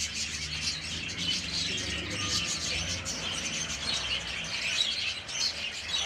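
Many small caged birds chirping and twittering together in a dense, unbroken chatter, with a faint low rumble underneath.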